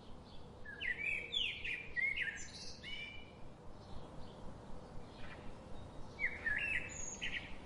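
A bird singing two quick phrases of whistled, gliding notes, one about a second in and a shorter one near the end, over a steady outdoor hiss with fainter calls between.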